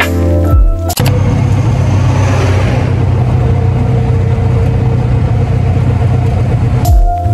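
Background music for about the first second, then steady engine and road noise from inside a moving vehicle, a low rumble with a broad hiss over it. The music returns just before the end.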